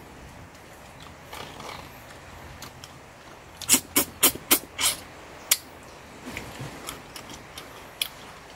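A quick run of about six loud, wet lip smacks from someone sucking grilled fish off his fingers, followed by a few softer smacks near the end.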